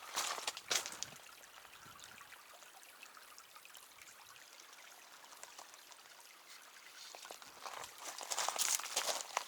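A hiker's footsteps crunching on the trail, a few sharp steps at the start, then a quieter stretch with a faint steady hiss, and the steps resuming near the end.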